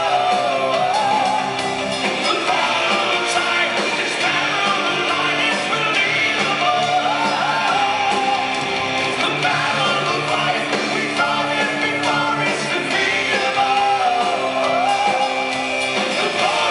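Live melodic hard rock band playing: a lead vocalist sings a gliding melody over electric guitars, bass and drums, heard from the audience in a large hall.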